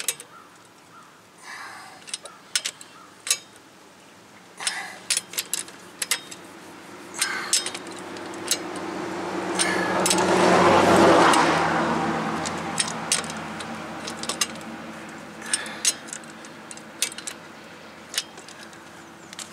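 Sharp metallic clicks and clacks as a torque wrench and socket go onto and tighten the lug nuts of a steel car wheel one after another. About halfway through, a rushing noise swells to its loudest and then fades.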